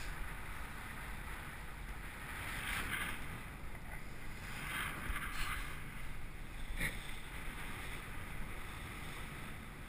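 Wind rushing over a helmet- or hand-held action camera's microphone high up under a parasail: a steady low rumble with a few louder gusts, and one brief click about seven seconds in.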